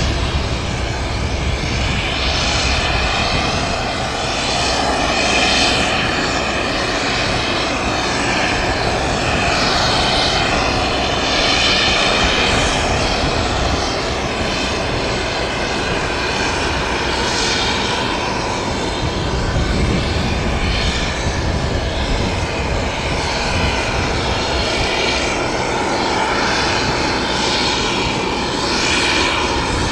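Jet engines of a Boeing 737-300 (CFM56 turbofans) running steadily: a continuous jet noise whose hiss shimmers and wavers in tone every few seconds, swelling and easing slightly in loudness.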